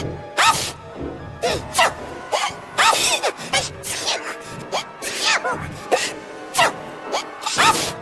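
A cartoon choir's voices sneezing and hiccuping in a quick, uneven string of short bursts, about two a second, over music.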